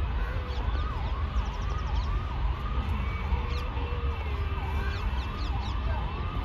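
A siren yelping: a quick rising-and-falling tone that repeats about twice a second over a steady low rumble.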